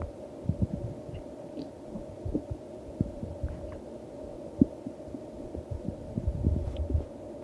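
Stomach growling: irregular low gurgles and short squelching pops, growing busier and louder near the end, over a steady low hum.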